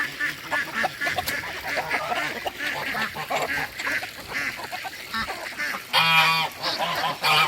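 Ducks quacking and chattering in many short overlapping calls, with two loud goose honks near the end.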